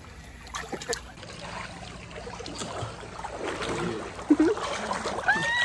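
Swimming-pool water sloshing and lapping close to the microphone, with small splashes. Faint voices in the water, and a short high-pitched vocal squeal near the end.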